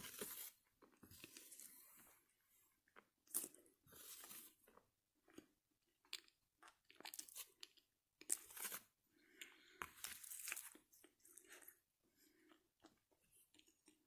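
A person chewing and crunching food close to the microphone, in irregular crunches with short pauses between them.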